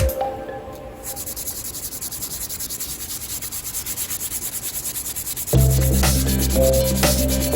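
Wood being sanded by hand: quick, even back-and-forth rubbing strokes. Background music comes in loudly about five and a half seconds in.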